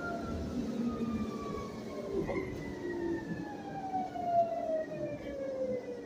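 Whine of a Proterra Catalyst E2 battery-electric bus's UQM traction motor, heard from inside the cabin: several tones falling slowly in pitch as the bus slows, over low road rumble.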